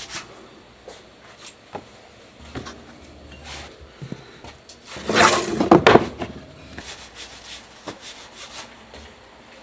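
Hands rolling and twisting donut dough on a floured table and setting the twists down on a wooden tray: soft rubbing and light taps, with one louder scraping rustle about five seconds in.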